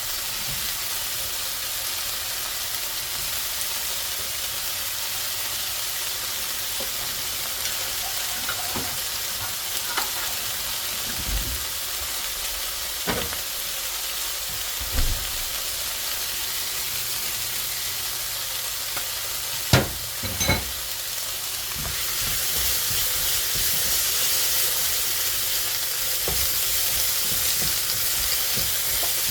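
Vegetable fried rice with sausage sizzling in a pan as it is stir-fried, with a steady hiss and occasional sharp knocks of the utensil against the pan. The sizzle grows somewhat louder about two-thirds of the way in.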